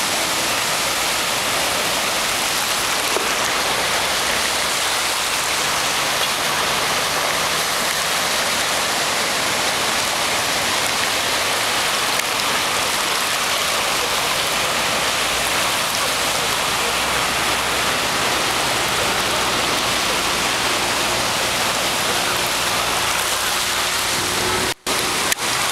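Steady rushing of floodwater streaming across a flooded road, an even, loud hiss of moving water. It cuts out for a moment near the end.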